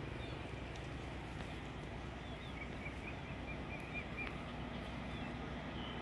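Low, steady rumble of a distant diesel locomotive approaching, with a small bird chirping a quick string of short high notes in the middle. A steady engine drone comes up near the end as the train draws nearer.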